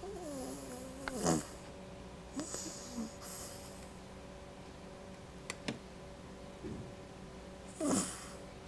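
Sleeping dog snoring. A long, wavering snore slides down in pitch and ends about a second in, shorter snorts follow a second or two later, and a louder snort comes near the end.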